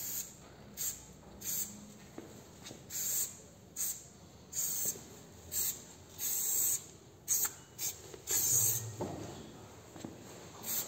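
A run of short, high hissing strokes, about one a second and each under a second long, as graffiti letters are drawn stroke by stroke.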